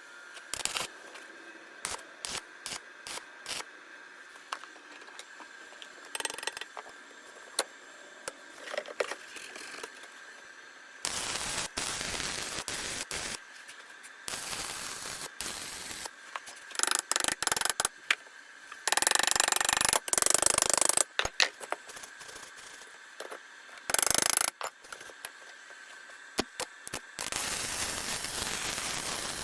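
Workshop repair sounds: scattered metallic clicks and knocks over a faint steady high whine, broken by several loud stretches of mechanical noise a second or two long.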